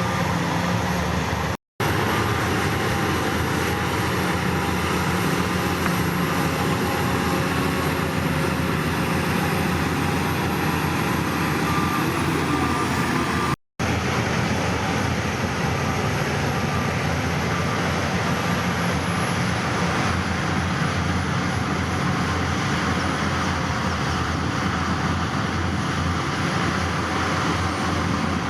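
Heavy diesel earthmoving machinery running steadily under load, its engine note held fairly even. The sound cuts out completely for a split second twice, about 2 and 14 seconds in.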